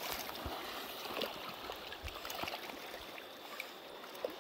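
River water flowing and lapping among rounded stones at the bank: a steady rushing wash with a few small clicks.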